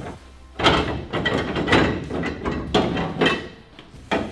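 Irregular metallic clunks, scrapes and rattles as a Ford XY Falcon steering column is worked loose and pulled back out from under the dash. They start about half a second in and keep going with no steady rhythm.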